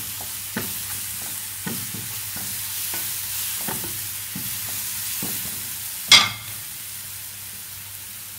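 Shallots and ground spice paste sizzling in coconut oil in a non-stick frying pan, stirred with a wooden spatula that scrapes and taps against the pan about once a second. About six seconds in comes a single sharp clack, the loudest sound, as the spatula is set down.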